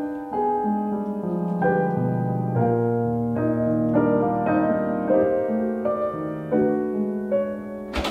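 Piano music playing a slow run of notes and chords. A short sharp click comes right at the end.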